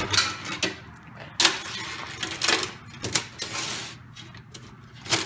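A loose chainsaw chain being handled and laid on a workbench: its steel links clink and rattle in a string of irregular sharp clicks.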